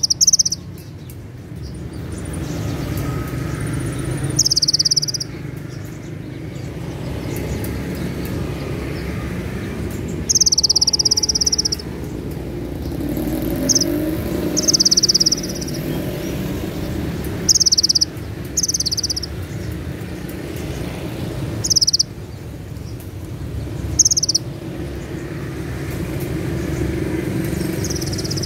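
Caged male Van Hasselt's sunbird (kolibri ninja) singing its sharp, high 'tembakan cililin' phrases: about nine short, fast-trilled bursts of a second or less, some coming in quick pairs, over a steady low hum of street noise.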